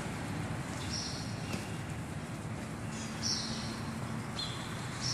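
Steady outdoor background noise with four short, high bird chirps spread through it.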